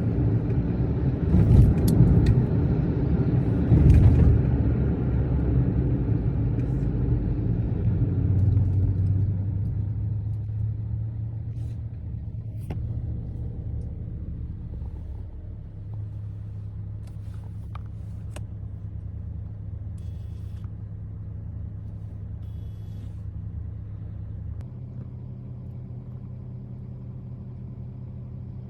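A motor vehicle engine running, loud and rough at first, then settling to a quieter steady low hum.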